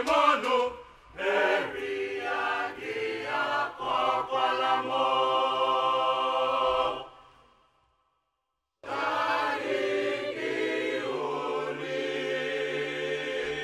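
Mixed choir of men and women singing an Igbo song. The singing fades out about seven seconds in, there is a second of silence, and then the choir comes back in abruptly and sings on until it fades near the end.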